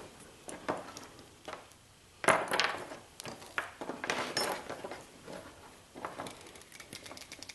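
Stranded copper conductor of a thick dryer power cord being pulled out of its slit insulation: irregular rustling, scraping and light metallic clinks, the loudest about two seconds in.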